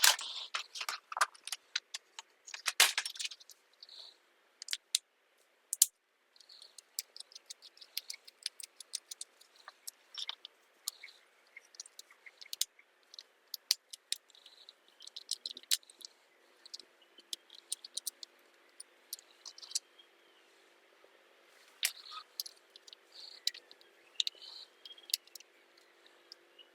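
Small metal carburettor parts and hand tools clicking, clinking and scraping at irregular intervals as a motorcycle carburettor is taken apart for cleaning.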